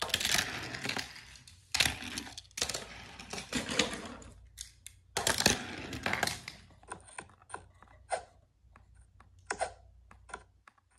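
Toy pieces being handled and set down on a wooden floor: rustling and clattering for the first six seconds or so, then a run of light, irregular clicks and taps.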